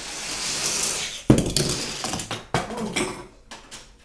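Die-cast toy car rolling down a plastic Hot Wheels track with a rushing whir, then landing with a sharp clack about a second in, followed by several smaller clatters as it bounces across the tabletop.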